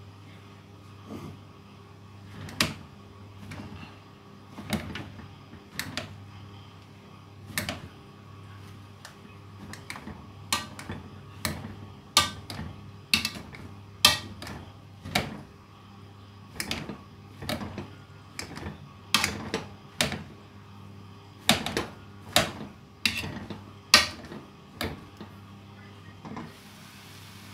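A utensil knocking on cookware while boiled potatoes are mashed: irregular sharp knocks, roughly one to two a second, coming faster in the second half, over a faint steady hum.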